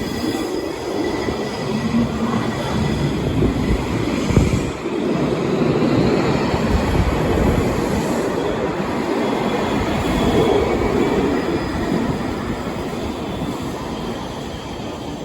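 K5000 light-rail car running on the track: steady wheel-on-rail rumble with faint high wheel squeal, easing off a little over the last few seconds.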